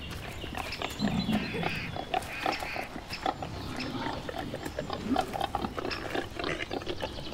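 Wild boars grunting and rustling as they root through forest undergrowth, with many short crackles and snaps of twigs and vegetation.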